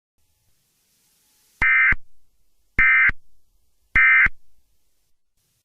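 Emergency Alert System end-of-message (EOM) signal: three short, identical SAME digital data bursts about a second apart, marking the end of the alert.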